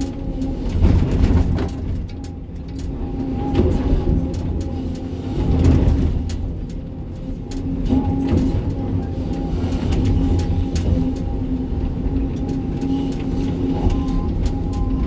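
Sany 305 excavator's diesel engine running under load, with a steady hydraulic whine and scattered knocks of rock in and against the bucket. The engine swells louder about a second in and again around six seconds in.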